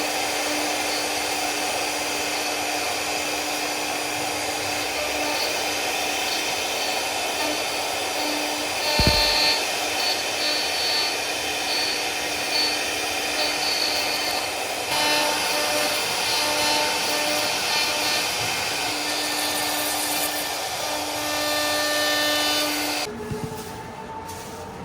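CNC router spindle cutting wood: steady machining noise with a steady hum and higher whining tones that shift as the cutter moves, easing off and getting quieter about 23 seconds in.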